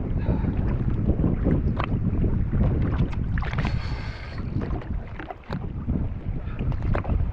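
Wind buffeting the microphone over water slapping and splashing against a jet ski's hull, with a few small knocks and a brighter splash a little past halfway.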